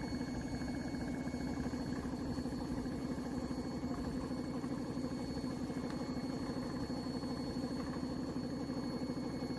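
A small motor running steadily, with a rapid, even pulsing and a faint high whine above it.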